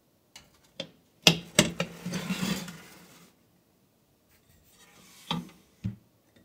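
Metal baking tray clacking against the oven rack, then scraping as it slides in. Two more clicks come near the end.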